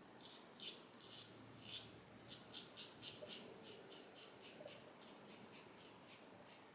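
Safety razor with a Vi John SP blade scraping through lathered stubble in short, quick strokes, fastest near the middle at about four a second.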